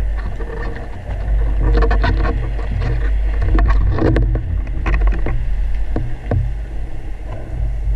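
Underwater sound picked up by a camera mounted on a wooden speargun: a steady low rumble of water moving past the housing, with many irregular knocks and clicks as gear and line bump against the gun.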